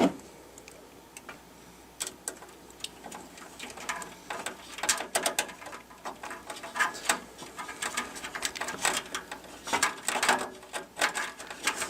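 A screw being driven into a motherboard riser in a computer case: small metal clicks and scrapes, sparse at first and turning into a busy run of quick clicks from about four seconds in.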